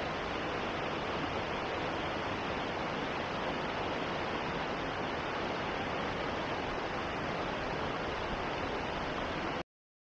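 White water rushing over rocks at the Akiu Great Waterfall, a steady, even rush that cuts off suddenly near the end.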